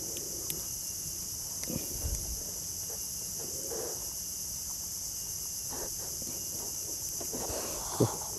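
Steady high-pitched chorus of insects, with a few soft knocks and rustles from hands handling a caught fish in the boat.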